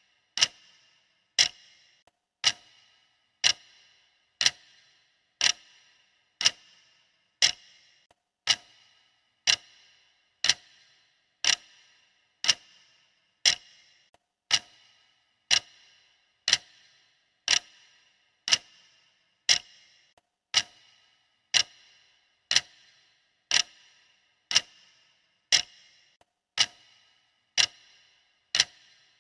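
Countdown timer's clock-style tick, one sharp click every second in a steady even rhythm, each with a short bright ring.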